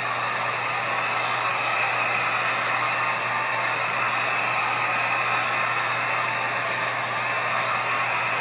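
Electric heat gun blowing hot air steadily: an even rush of air with a few steady whining tones over a low motor hum, aimed at the edge of a cracked iPad's glass to soften its adhesive. It cuts off suddenly at the very end as the gun is switched off.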